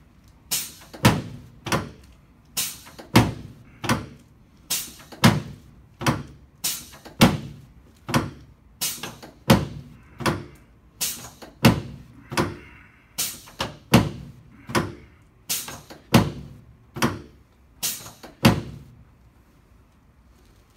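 Chiropractic drop table's sections snapping down again and again under quick thrusts: a run of sharp clacks, about two a second, some in quick pairs, stopping shortly before the end.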